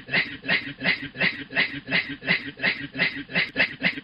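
A man's wheezing 'hue hue' laugh repeated in an even, chugging rhythm of about three beats a second, imitating a steam train.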